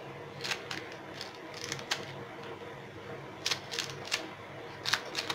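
Knife cutting a bundle of turmeric leaves held over a pot, about ten short crisp cuts at uneven intervals, over a faint steady hum.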